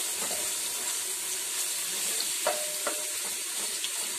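Crushed garlic sizzling in hot ghee in a stainless steel karahi, stirred with a wooden spoon, a steady frying hiss. About two and a half seconds in, two light knocks with a short ring as the spoon hits the pan.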